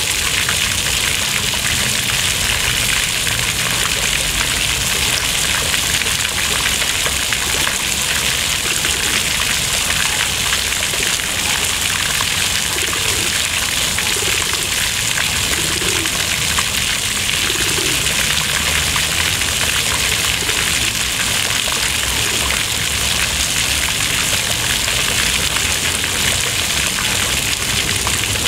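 Fountain jets arcing through the air and splashing steadily into a shallow stone basin, a continuous hiss of falling water.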